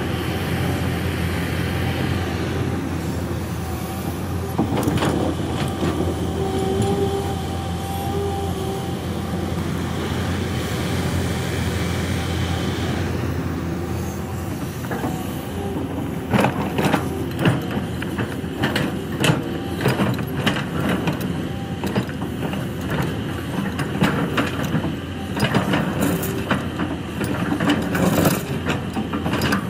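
Kobelco SK200 hydraulic excavator working: a steady diesel engine drone with a few held higher tones. From about halfway through, its steel bucket digs into rocky soil with many sharp scrapes and knocks.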